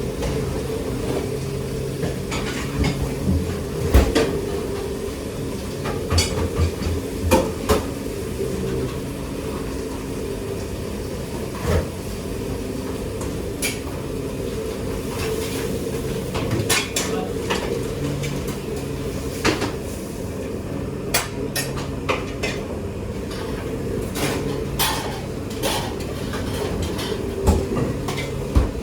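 Kitchen work sounds: scattered clatter and knocks of pots, pans and metal utensils over a steady machine hum.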